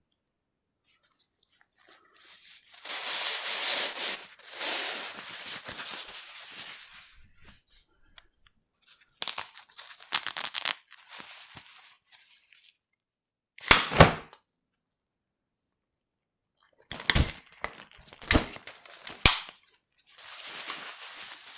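Umbrella being opened and closed: the fabric canopy swishes and rustles, and the runner and ribs catch with sharp snaps and clicks, the loudest a double snap about halfway through.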